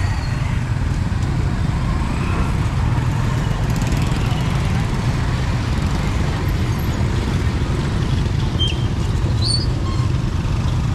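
Street traffic of motorbike scooters and tuk-tuks passing close by, a steady rumble of small engines with no let-up.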